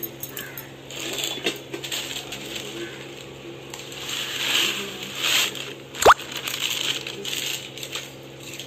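Plastic packet of wheat vermicelli crinkling and rustling as the dry noodles are shaken out into a pot of boiling water, with small clicks and taps. About six seconds in, a short sharp rising squeak is the loudest sound.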